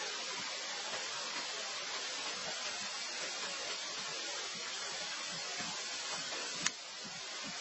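Steady hiss with no clear source, with one sharp click about seven seconds in.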